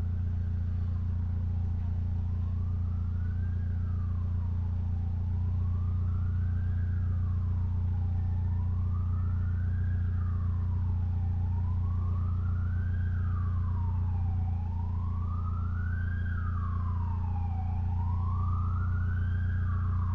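Mitsubishi Lancer Evolution X's turbocharged four-cylinder engine running with a steady low drone, without revving. Over it an emergency vehicle's wailing siren rises and falls slowly, about once every three seconds, growing louder towards the end as it approaches.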